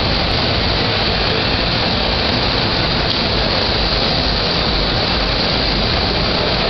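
MAN truck's diesel engine idling steadily, blended with the steady din of a crowded exhibition hall.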